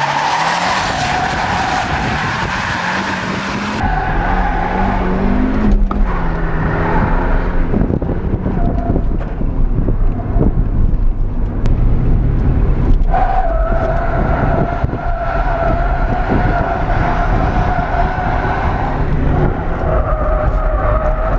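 Nissan 200SX S13's turbocharged CA18DET four-cylinder running hard while the car drifts, its rear tyres squealing in long screeches: heard from trackside for the first four seconds, then from inside the cabin. The squeal dies away for a stretch in the middle and returns strongly about two-thirds of the way through.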